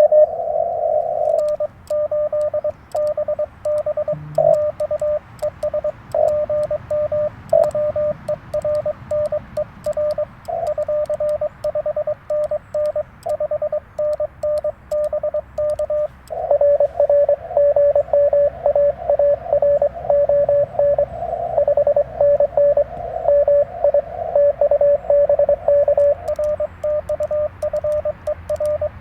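Morse code (CW) on a Yaesu FT-891 transceiver: a single steady tone keyed on and off in dots and dashes over band hiss. A louder, slightly different-pitched tone stops about a second in, and the keying grows stronger about halfway through.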